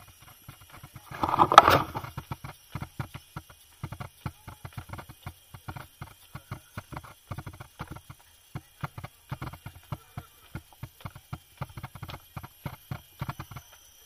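Irregular quick taps and knocks, several a second, with a louder rustling burst about a second in.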